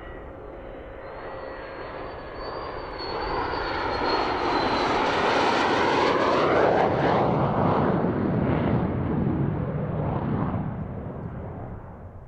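F-16 fighter jet's engine flying low past on landing approach with its gear down: a high whine and roar that build to a peak about halfway through, sweep down in pitch as the jet passes, then fade away.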